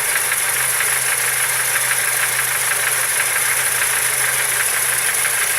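Car engine idling steadily with a rapid, even knocking tick from inside the engine: the knock the owner is recording.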